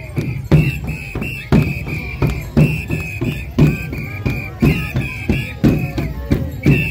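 Carnival comparsa music: a bass drum beating about two strokes a second, with a shrill high whistle tone blown in short blasts in time with it.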